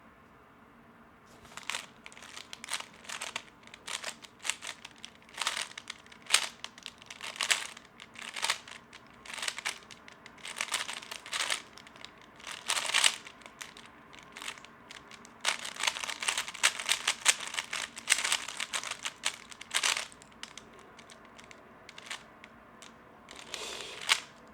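A 3x3 speedcube being turned fast during a timed solve: quick runs of plastic clicking in irregular bursts with short pauses between them. The bursts start about a second and a half in, stop briefly around the middle, and are densest a little past the middle.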